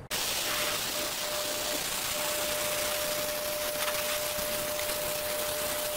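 Oxy-acetylene welding torch flame hissing steadily while it melts a bead of filler rod into a steel plate, with a faint steady high tone through the hiss. It begins abruptly.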